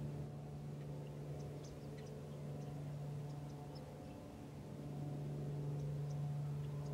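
Steady low mechanical hum, like a distant motor, dipping slightly about four seconds in and coming back up a second later, with faint short high chirps of small birds over it.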